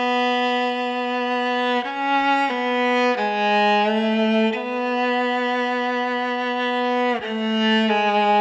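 Background music: a slow melody on a bowed string instrument, played in long held notes that step to a new pitch every second or two, one held for nearly three seconds in the middle.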